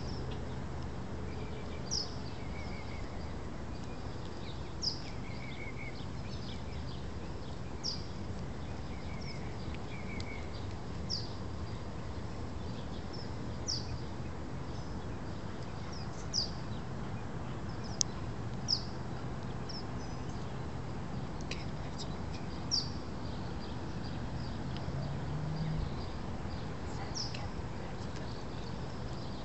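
A bird repeating a single short, sharp, downward-sweeping chirp about every three seconds, with a few softer lower notes in the first ten seconds, over a steady low hum.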